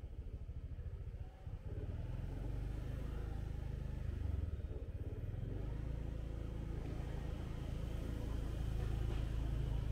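Motorbike engine running at low speed on the move, a quick even throb for the first second and a half, then a steadier low hum after a brief dip.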